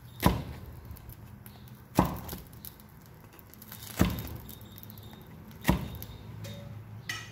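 Metal fork stabbing down through a flatbread in a non-stick frying pan, its tines striking the pan bottom: four sharp clinks about two seconds apart, pricking the egg-topped bread to check it is cooked through. A low steady hum runs underneath.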